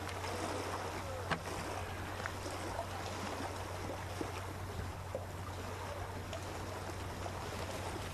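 Steady outdoor ambience: a constant low rumble under a soft hiss, with one sharp click a little over a second in.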